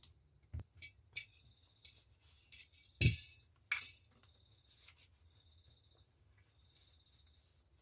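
Scattered light metallic clicks and clinks of a steel Colt 1911 pistol being handled while it is oiled and wiped down, with one louder knock about three seconds in and another just after.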